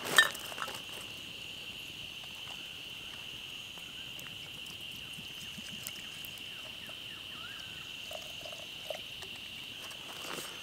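A steady, high insect drone, with faint crackling from a small stick campfire and a sharp click right at the start.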